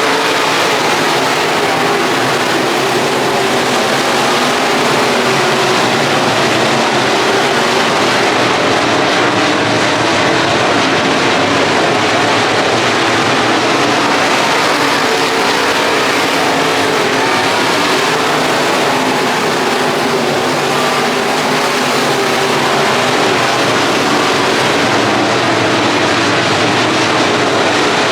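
Dirt-track race car engines running steadily, a loud continuous drone with no clear revving or breaks.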